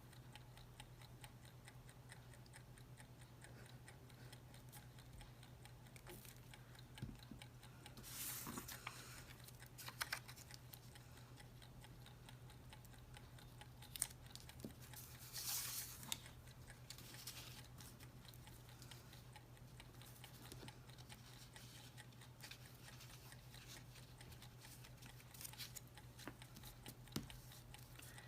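Near silence: a steady low hum with faint ticking like a clock, and a few brief soft rustles of paper being handled.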